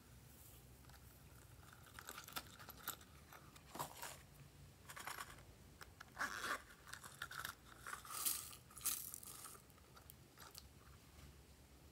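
Faint handling noises from a pineapple-shaped plastic container being squeezed and fiddled with by hand: irregular small clicks, crinkles and short hissy squeezes, loudest about six and eight seconds in.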